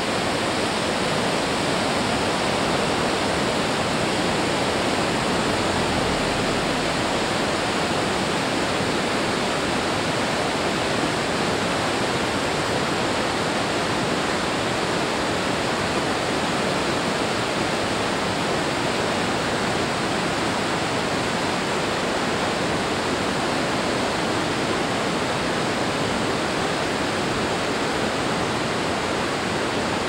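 River whitewater churning through a narrow rock gorge: a steady, unbroken rush of water.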